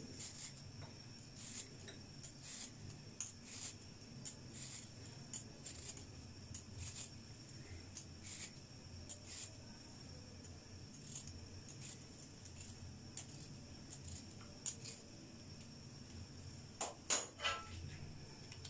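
Metal vegetable peeler scraping the skin off a raw sweet potato in faint, short strokes, about one or two a second. A few louder clicks come near the end.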